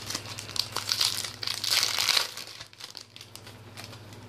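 Crinkling and rustling as Topps Chrome football trading cards are handled and shuffled, busiest in the first two seconds, then quieter with a few soft clicks.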